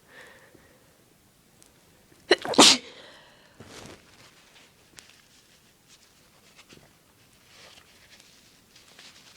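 A person sneezing once, loudly, about two seconds in: an induced sneeze. A softer breathy sound follows about a second later.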